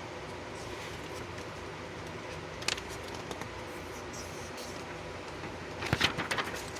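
Plastic model kit box and parts being handled: a steady faint hum under a sharp click about three seconds in and a quick cluster of clicks and rustles near the end.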